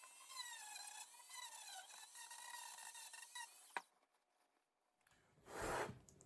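Dremel rotary tool running at low speed with polishing compound against a straight razor blade, its high whine wavering in pitch as it is pressed on and eased off, then cutting off about four seconds in. A short burst of noise follows near the end.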